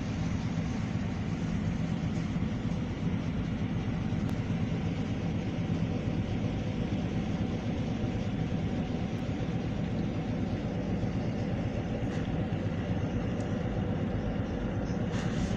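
Steady running noise of a bus, heard from inside the passenger cabin as it drives: a constant low hum.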